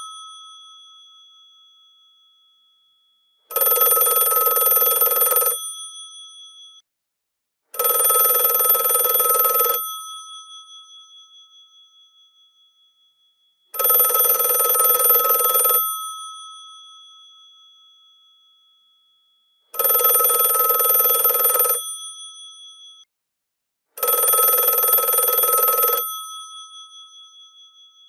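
Twin bells of a GPO 746 rotary telephone ringing in five bursts of about two seconds each, with uneven pauses between them. After each burst the gongs ring on and fade.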